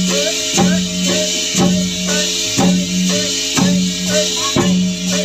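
Dongkrek music from a Javanese percussion ensemble: a heavy drum beat about once a second, a steady humming tone held between the beats, and rattling percussion over the top.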